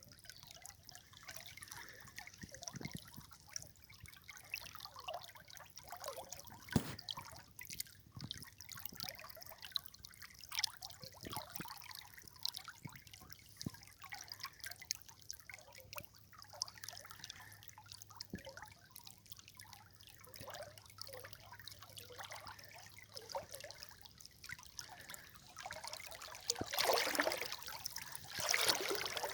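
River water trickling and dripping, with many small splashes throughout and two louder gushes near the end.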